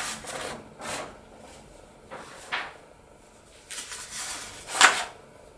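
Large sheets of painting paper being lifted, slid across the table and laid down, rustling in short bursts, with a louder knock or snap about five seconds in.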